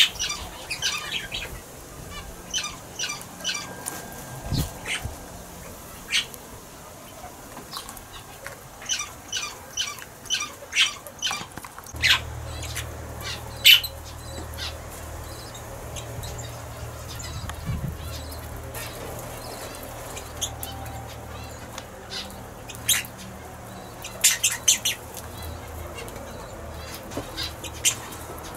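Red-rumped parrots giving short, sharp chirping calls, often in quick runs of two to five, scattered throughout. A faint low hum comes in about halfway through.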